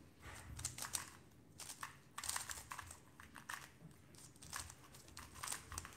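Plastic speedcubes being turned quickly by hand: a fast, irregular run of light clicks and clacks as two 3x3 puzzle cubes are solved at the same time.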